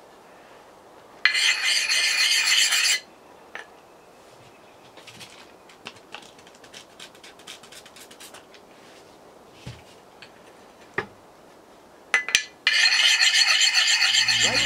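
A sharpening stone scraped rapidly back and forth along the steel edge of a Collins double-bit axe, honing the bit. Two loud runs of strokes, one of about a second and a half and another starting near the end, with faint light scrapes and ticks between them.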